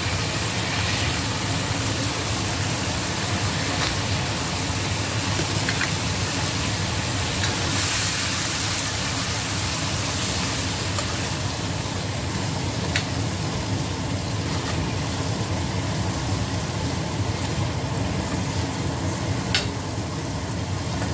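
Fish frying in hot oil in a wok, a steady sizzle, with a few sharp clicks of a metal spatula against the pan as the fried fish are lifted out.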